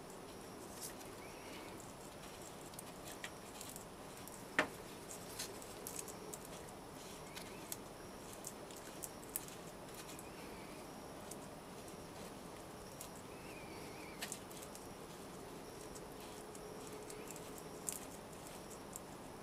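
Faint scratching and scattered light clicks of fine casting sand being worked by hand through a metal sieve, with one sharper click about four and a half seconds in.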